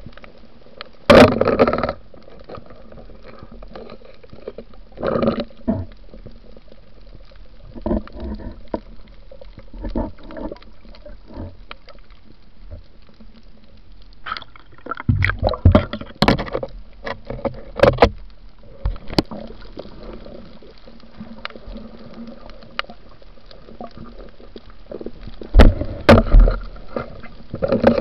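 Water gurgling and bubbling around an action camera underwater, muffled, broken by irregular louder bursts of splashing and knocking, loudest about a second in and near the end.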